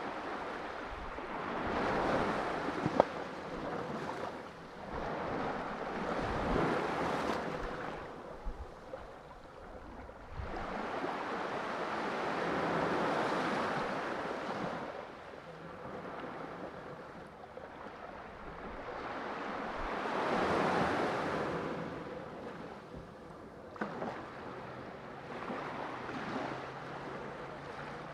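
Sea waves washing in and drawing back, rising and falling in slow swells several seconds apart. A sharp click comes about three seconds in, with a couple of fainter ones later.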